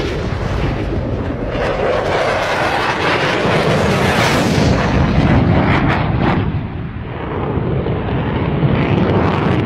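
Dense, rushing aircraft-engine noise, with a missile-launch whoosh rising about four seconds in, then several sharp explosion blasts a little later.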